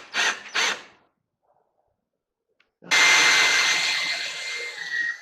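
Electric drill spinning a wire stripping machine as a small copper wire is fed through. It runs steadily for about two seconds from about three seconds in, with a high whine that dips slightly in pitch just before it stops. Three short scuffing sounds come in the first second.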